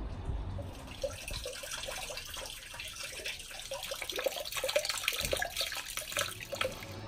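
Water pouring from a stone wall fountain's spout and splashing into the basin below, starting about a second in.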